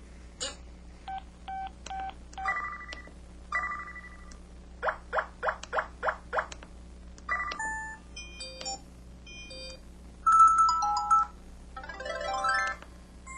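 IM-7700 mobile phone playing a series of its built-in sound effects through its speaker: short electronic beeps, chimes and chirps one after another with brief gaps. About halfway there is a quick run of six falling chirps, and the loudest, a longer warbling tone, comes about ten seconds in.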